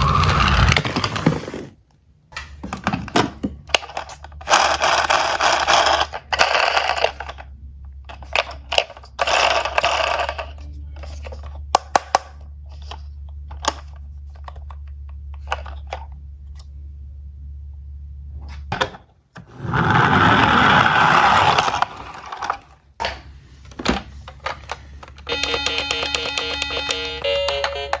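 Die-cast toy cars rolling down a plastic slope in several short runs of a second or two each, with sharp clicks of the cars being handled in between. Near the end, a toy's electronic siren starts up with a rapid, evenly repeating beep.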